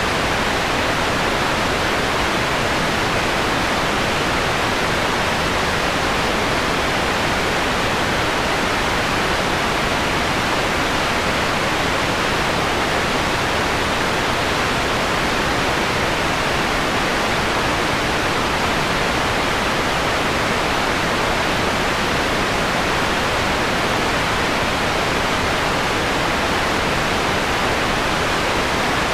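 Steady electronically generated white noise, shaped into a softened hiss with its highest frequencies turned down. It holds an even level with no events or changes.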